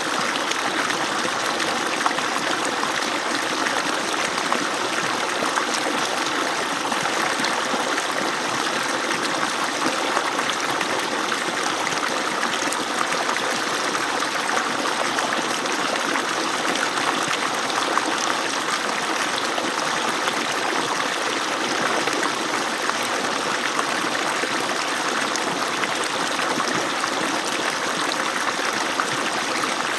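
Water pouring and splashing steadily from the outlet of an agricultural irrigation pump, a continuous even rush with no break.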